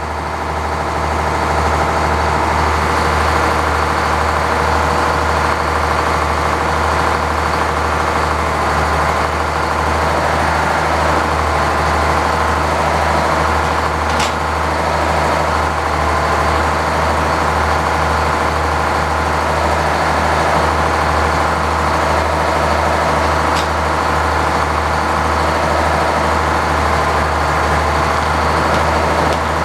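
Engine powering a sawmill, running steadily with the saw in gear, with no change in speed and no load from cutting. A faint short click about 14 seconds in.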